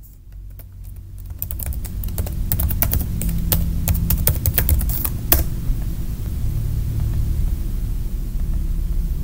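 Typing on a computer keyboard: a quick run of key clicks for about five seconds, ending with one harder keystroke. A low steady hum runs underneath.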